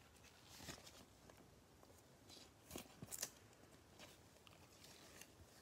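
Faint rustling and soft scrapes of a trading card being handled in gloved hands and slid into a clear plastic sleeve. These are a few brief touches, the loudest about three seconds in.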